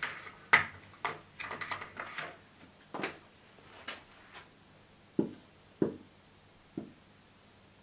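Marker writing on a whiteboard: a quick run of short scratchy strokes and clicks, then three short, duller knocks against the board.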